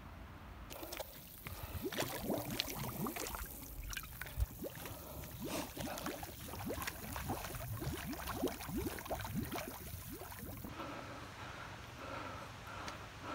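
Water glugging and gurgling in a bottle as a person drinks from it, in a quick run of short gulps. It stops abruptly about eleven seconds in.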